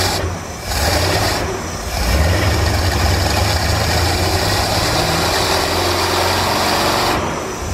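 Marine inboard V8 with a Holley 4160 four-barrel carburetor running steadily at idle, warmed up with its choke fully open.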